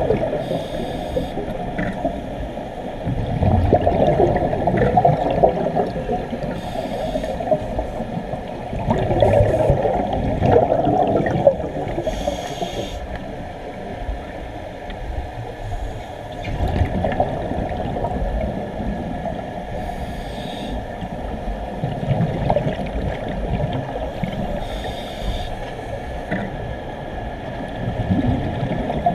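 Scuba regulator breathing heard underwater, muffled: a short hiss on each inhale about every five or six seconds, each followed by a gush of exhaled bubbles.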